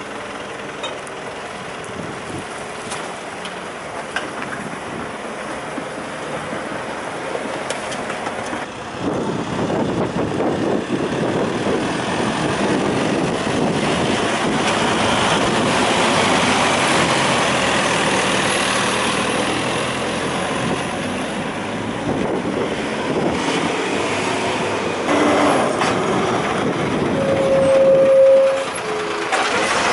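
Rubbish truck working, with its engine running and a louder stretch of dense machinery noise starting about nine seconds in. A brief steady tone sounds near the end.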